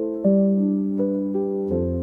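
Background music: a piano playing a slow run of held notes, with a deep bass note coming in near the end.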